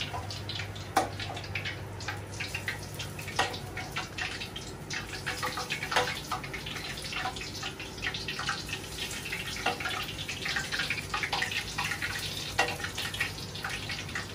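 Hot oil sizzling and crackling around a skewered piece of pork belly deep-frying in a wok, with sharper pops every few seconds, as the oil is ladled over the meat. A low steady hum runs underneath.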